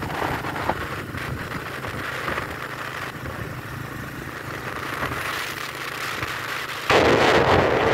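Motorbike engine running steadily at cruising speed, with road and wind noise. About seven seconds in, wind suddenly starts buffeting the microphone and becomes much louder.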